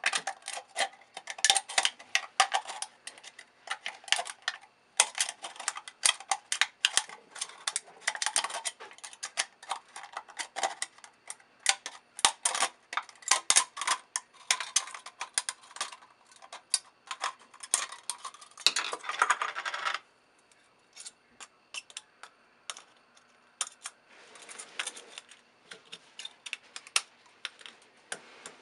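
Scissors snipping through the thin aluminium wall of a soda can, a rapid run of sharp snips as the blades work around the can. The snipping stops for a few seconds near the end, then resumes.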